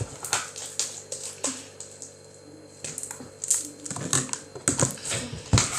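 Slime being squished and poked in the hands, making irregular sticky clicks and pops that come thicker and louder in the second half.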